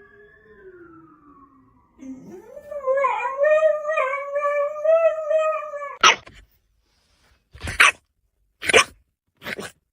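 A dog gives a faint, slowly falling whine, then a loud wavering howl for about four seconds. Four short, sharp barks follow.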